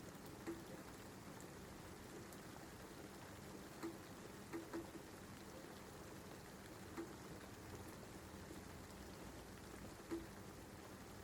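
Light, steady rain with a soft, even hiss, and about six separate drops plinking louder at irregular moments.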